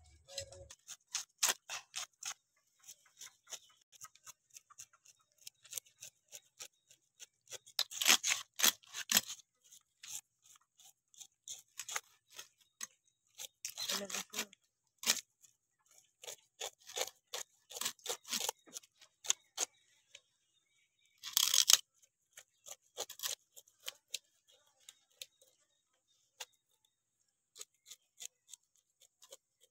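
Pomfret being scaled on an upright bonti blade: quick, dry scraping strokes in uneven runs, with louder spells of scraping about 8, 14 and 21 seconds in.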